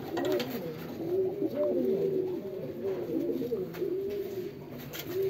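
Domestic pigeons cooing in their loft, several low, wavering coos overlapping without a break.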